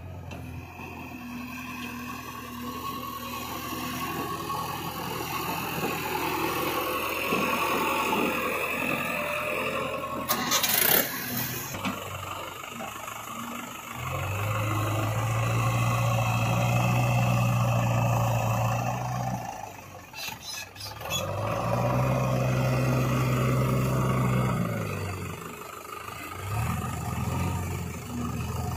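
Heavy diesel engine of a JCB 3DX backhoe loader running and working hard under load as its bucket pushes a mud-stuck trolley. In the second half the engine note rises and holds for several seconds, twice, with a short drop between. There is a brief harsh clatter about ten seconds in.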